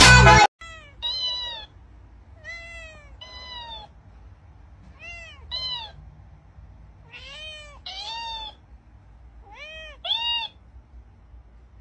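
Domestic cat meowing again and again, about ten short meows in pairs, the second of each pair higher-pitched. Dance music cuts off about half a second in.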